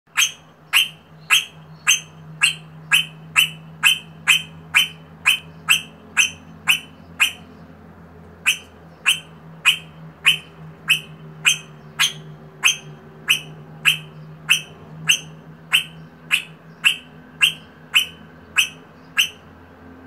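Eastern rosella giving a short, sharp, high call over and over, a little under two a second, with a pause of about a second partway through. A steady low hum runs underneath.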